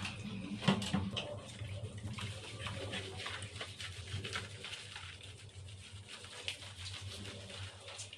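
Hands lathering and scrubbing a wet Shih Tzu's soapy coat: soft wet rubbing and squishing with scattered small splashes, and one sharper wet slap a little under a second in.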